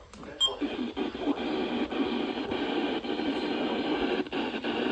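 Weather radio receiver hissing with static on a weak signal, with a few faint clicks and no clear voice.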